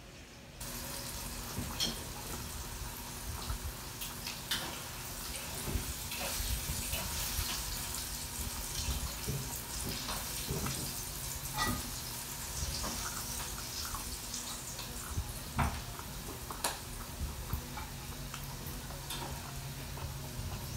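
Close-up eating sounds: chewing and crunching of breaded fried squid rings, heard as scattered sharp clicks over a steady hiss that starts abruptly about half a second in.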